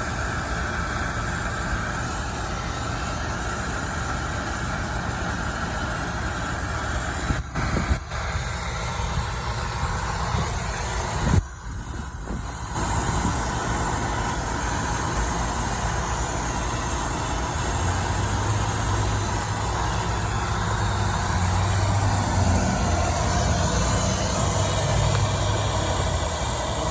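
Brazing torch burning steadily with a continuous rushing hiss while copper refrigerant lines are brazed. The noise drops out briefly twice, with a sharp pop about eleven seconds in.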